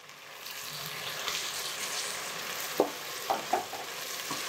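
Sliced onions and herbs sizzling in hot ghee and groundnut oil in a metal pot. The hiss swells in the first half second, and a metal spatula scrapes and knocks against the pot a few times in the second half.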